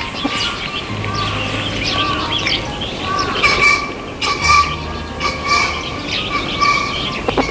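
Small birds chirping in quick, repeated calls over soft background music with held notes and a slow bass line.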